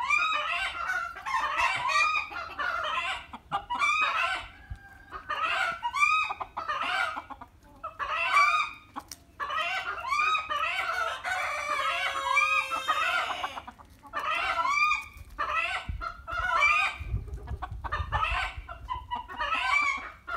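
A flock of Ayam Cemani chickens clucking almost without pause, many short calls overlapping, with one longer drawn-out call about twelve seconds in.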